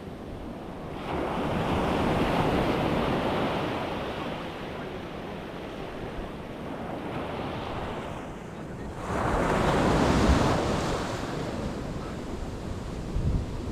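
Surf breaking on a sand beach, with two waves crashing and washing up, the second one louder. Wind buffets the microphone throughout.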